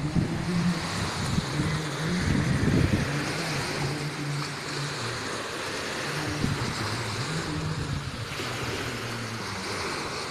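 Small waves washing onto a shore, with wind buffeting the microphone, over a low hum that shifts in pitch every second or so.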